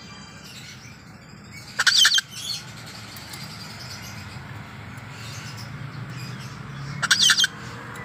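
Ducorps's cockatoo giving two short, loud chirping calls about five seconds apart, each a quick run of high, bending notes, over a steady low hum. These are the happy calls it makes when people come near.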